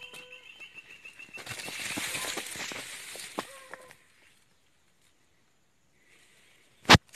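A burst of rustling, scraping noise lasting about two and a half seconds, with a short rising whine in it. Then the sound cuts out to silence and ends in a single loud, sharp click.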